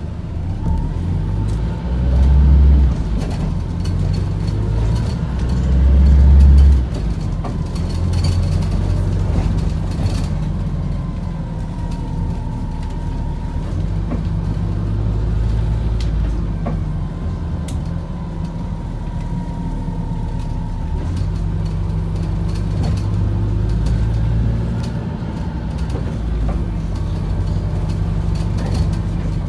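Gemini 2 hybrid double-decker bus running on the road, heard on board. Its drivetrain rumbles steadily, with two louder low surges in the first seven seconds. A faint whine rises and falls a few times later on.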